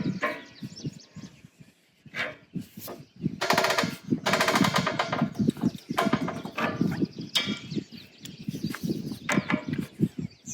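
Adjustable wrench working a brass propane hose fitting onto a tank valve: scattered sharp metal clicks and knocks, with a few spells of fast rattling clicks, the loudest a few seconds in.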